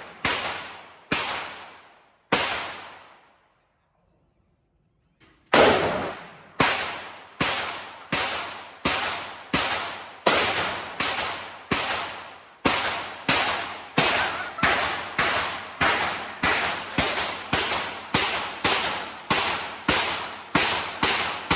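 Gunshots from a magazine-fed firearm being fired one after another, each with an echoing tail. Three shots come first, then a pause of a couple of seconds, then a long steady string of about two shots a second.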